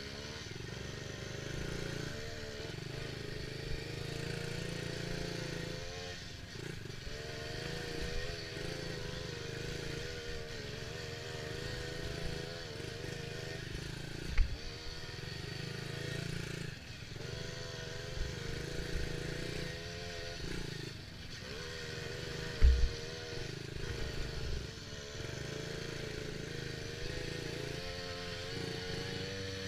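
Dirt bike engine riding a motocross track, the pitch rising and falling as the throttle opens and closes, with two sharp thumps about fourteen and twenty-three seconds in.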